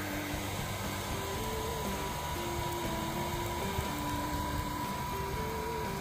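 Home-made barbecue blower, a high-speed DC motor and fan in an old hair-dryer housing running on two lithium cells, blowing steadily at full speed with a rushing airflow and a steady high motor whine. Background music plays under it.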